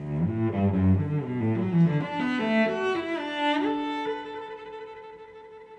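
Background instrumental music: a short melodic phrase that settles about three and a half seconds in on a long held final chord, which fades out.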